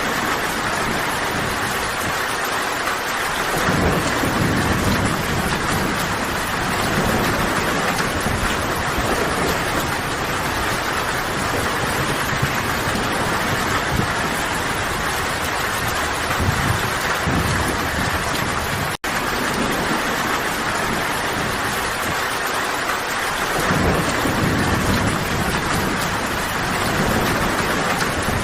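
Steady heavy rain, a dense even hiss, with low rolling thunder rumbling in a few seconds in and again near the end. The sound cuts out for an instant about two-thirds of the way through, where the looped recording restarts.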